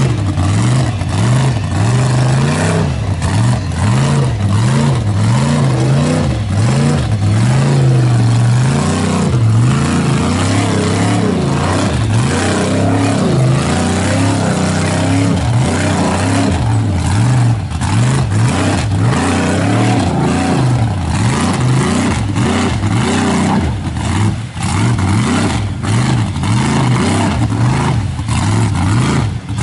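Mud truck's engine revving hard, its pitch rising and falling over and over as its big lugged tyres churn through deep mud.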